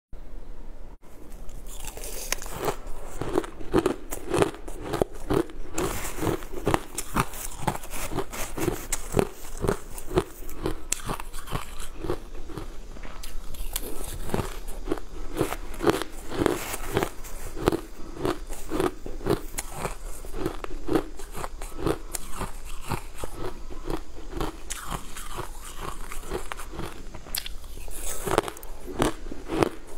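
Crushed sweet ice being bitten and chewed, close to the mouth: a dense, steady run of sharp crunches and crackles, starting about a second and a half in.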